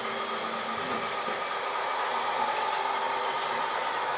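Steady whine of radio-controlled model excavators' motors at work, several steady tones over a mechanical hiss, with one tone rising slightly about halfway through.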